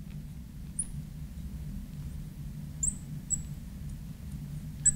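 Marker squeaking on a glass lightboard while words are written: about four short, high squeaks over a low, steady hum.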